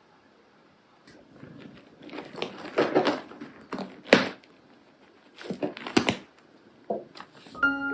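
A kitten's claws scratching and raking a fabric couch cushion: a string of irregular rasping scratches, starting about a second in, with the loudest strokes about four and six seconds in.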